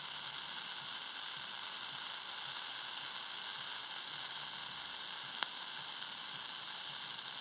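Shortwave receiver static: a steady hiss from an open channel with no signal on it, and one short click about five and a half seconds in.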